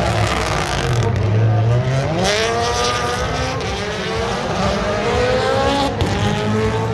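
Rally car engine accelerating hard, its pitch climbing steadily from about two seconds in. There is a short break about six seconds in as it shifts up a gear, then the pitch rises again.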